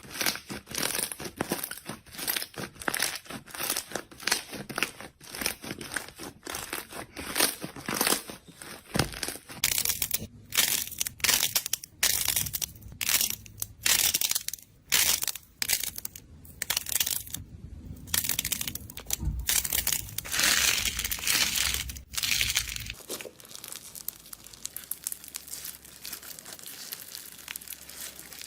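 Slime being squeezed and pressed by hand, a rapid run of crackly, crinkling squishes and pops; the sound changes around 10 s in and turns quieter and finer from about 23 s in.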